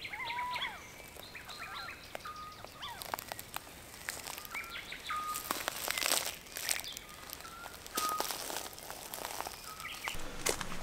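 Songbirds singing at dusk: short whistled notes and chirps, one flat whistle repeated about once a second. From about five seconds in, footsteps rustle through grass and leaves, loudest around six seconds and again near the end.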